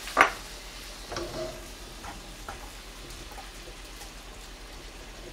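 A cooking utensil knocking against a pan while fried chunjang (black bean paste) is scraped in: one sharp knock just after the start, then a few lighter, scattered taps.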